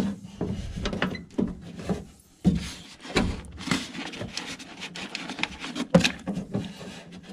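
Irregular knocking, scraping and rubbing from the window glass and track being worked by hand inside an opened car door, with sharp knocks at the start, about halfway through and near the end.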